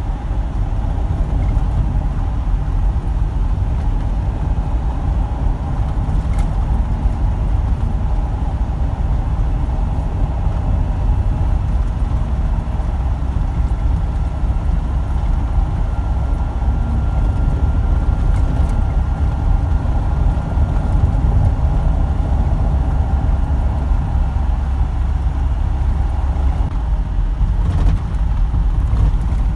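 Steady low drone of a truck's engine and road noise, heard from inside the cab while driving at an even speed.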